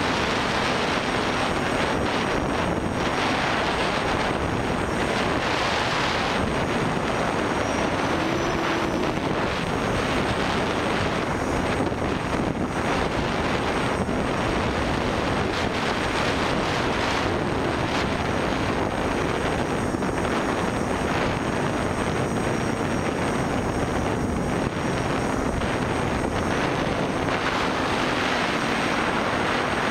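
Armattan FPV Rev2 Tilt quadcopter in flight, heard from its onboard camera: a steady whir of Tiger MT2216 brushless motors spinning Graupner 9x5 propellers, mixed with rushing wind noise. The motor tone rises briefly about eight seconds in.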